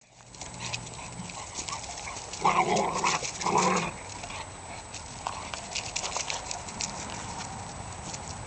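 Eight-week-old pitbull puppy giving two short barks, about two and a half and three and a half seconds in, among scattered light clicks.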